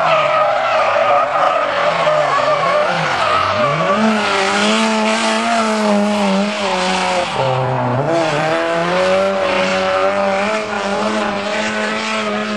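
Nissan S13's turbocharged SR20DET four-cylinder held at high revs through a drift, with the tyres screeching as they spin and smoke. The revs dip and climb back twice, about three seconds in and about eight seconds in.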